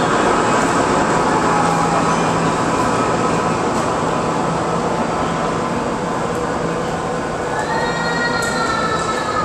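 R68 subway train's traction motors howling as it pulls away down the tunnel, over a steady rumble of wheels on rail in the underground station. A whining tone glides up and then down near the end.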